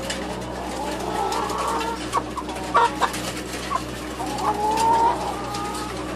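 Many caged laying hens clucking and calling over one another, a few sharper calls standing out near the middle, with a steady low hum underneath.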